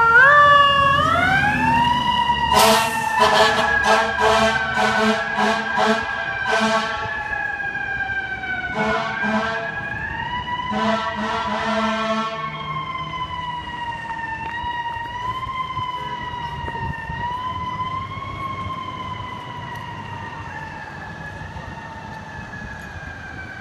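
FDNY fire engine's mechanical siren winding up, then slowly winding down with small re-rises, as the rig pulls out on a run. Bursts of repeated air horn blasts sound over it for the first half, and the whole sound fades as the engine drives away.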